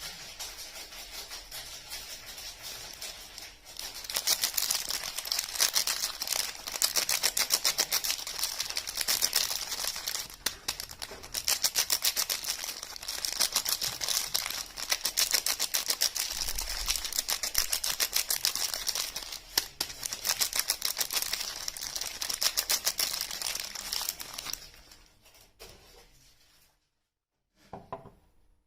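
Soap bar packaging being unwrapped by hand: dense, rapid crinkling and tearing of the wrapper. It swells about four seconds in and tapers off near the end, with one short rustle just before it stops.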